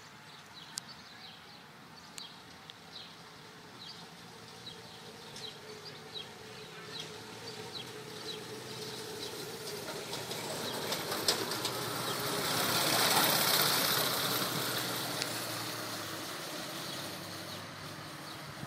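Go-kart's small engine running, growing louder as the kart comes closer, loudest about two-thirds of the way through, then fading away. Birds chirp in the background through the first half.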